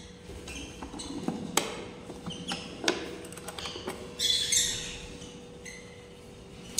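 A few sharp knocks and clicks as a wooden nest box and its metal hasp latch are handled. A short burst of small-bird chirping comes a little after four seconds in and is the loudest sound.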